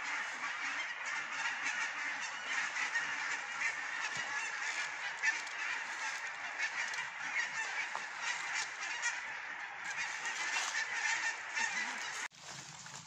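A flock of birds calling noisily, many honking calls overlapping at once. It cuts off abruptly near the end, leaving a faint low hum.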